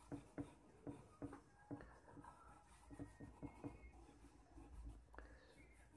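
Charcoal stick scratching faintly on drawing paper in short, repeated strokes, about two or three a second, as a cast shadow is shaded in. The strokes thin out after about four seconds.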